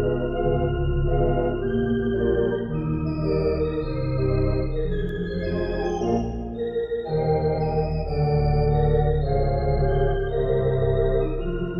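Sampled Barton theatre pipe organ, played through Grand Orgue software, playing a popular song. A melody line moves over sustained chords, with a steady bass underneath, and the chords change every second or two.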